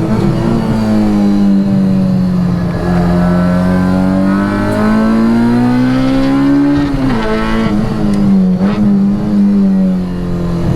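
K20-swapped Honda Integra Type R's four-cylinder engine running hard at high revs on track. The pitch dips, then climbs steadily to a peak about seven seconds in, where it breaks at a gear change or lift, then runs lower and falls away.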